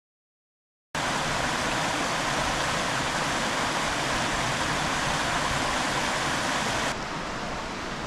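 Steady rush of stream water, cutting in abruptly about a second in after dead silence and dropping a little in level near the end.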